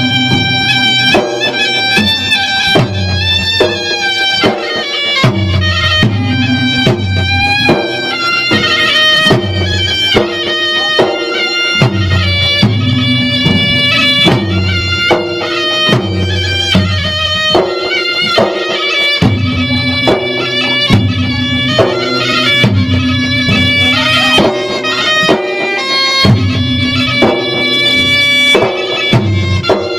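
Traditional Maros gendang drums beaten in a lively, continuous rhythm, under a shrill reed pipe playing a sustained melody.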